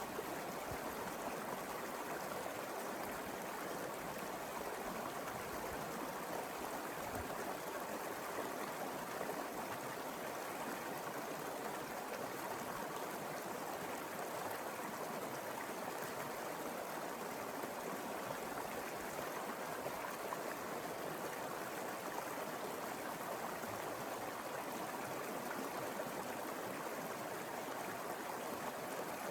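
Mountain river flowing over rocks: a steady, even rush of running water.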